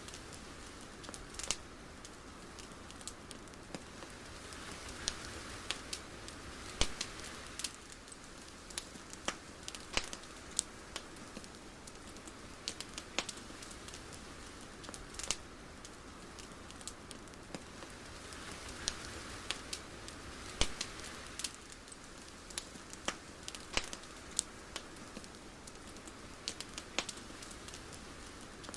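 Irregular crackling: scattered sharp clicks and pops over a faint steady hiss, which swells softly twice, once about five seconds in and again near twenty seconds.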